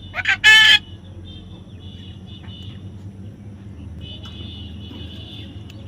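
A bird gives one loud call in the first second, a few short rising notes and then a clear ringing note about half a second long. Faint, thin high chirping runs on behind it in patches.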